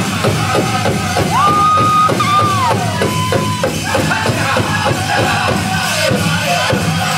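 Powwow drum group: a big drum struck in a fast, steady beat under high-pitched group singing, with a high note held from about a second in that then slides down.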